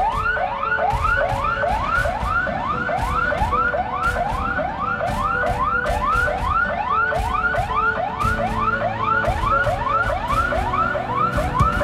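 Emergency siren sounding a fast yelp: quick rising sweeps, close to three a second, repeating without a break.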